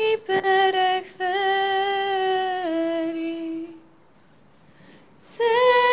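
A female voice singing Ancient Greek verse in long held notes, the pitch stepping down about halfway through, then a pause of over a second and a higher note near the end.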